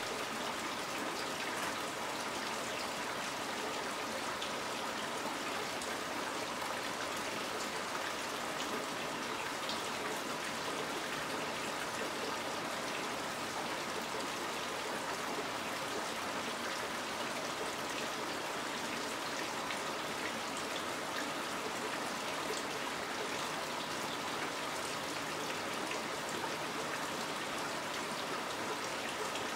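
Steady, even rushing noise with a water-like trickle and faint steady high tones underneath, unchanging throughout.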